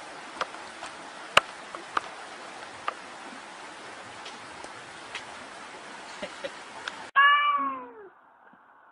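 A steady hiss with a few sharp clicks, then about seven seconds in a domestic cat gives one loud meow that rises and then falls in pitch.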